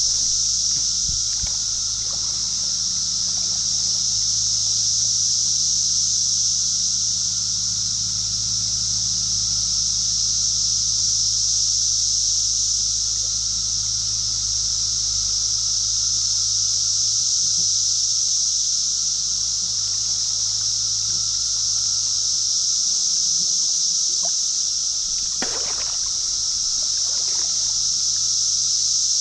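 Shallow creek water hissing and trickling steadily around a wading angler, with light sloshing and one short splash near the end.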